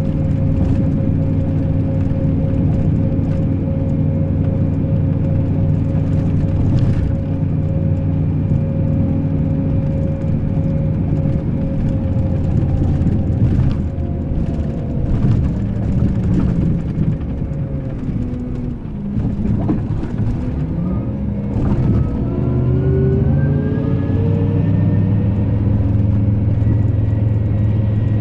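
Scania K380 IB coach's diesel engine running with a steady whine over it. About halfway through the engine note falls away, then climbs again and settles.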